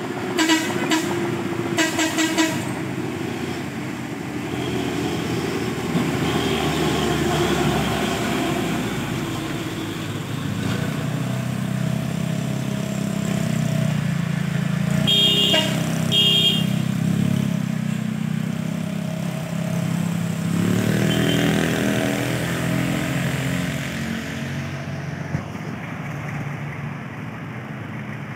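Heavy truck's diesel engine running as it climbs past, strongest in the middle, with other traffic passing. A vehicle horn sounds in a quick string of toots at the start, and two short horn toots come about halfway through.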